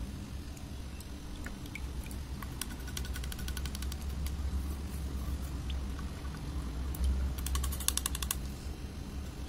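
Plastic spoon stirring a wet Fevicol white-glue slime mixture in a plastic bowl: soft squishing with bursts of rapid clicking and scraping, about three seconds in and again, louder, near the end, over a low steady hum.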